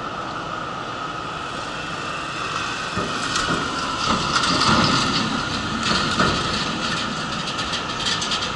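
Flatbed truck driving past, its engine and tyre noise building about three seconds in and easing off after about seven seconds, over the steady rolling rumble of wheelchair wheels on asphalt.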